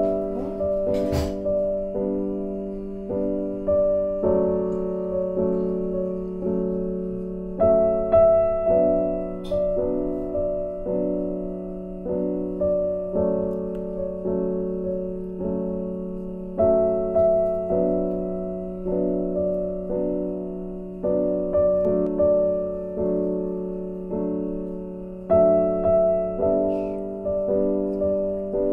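Background piano music: a gentle, slow phrase of struck notes that repeats about every nine seconds.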